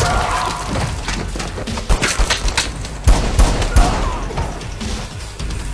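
A film gunfight: a string of gunshots, some in quick runs of two or three, loudest in the middle of the stretch.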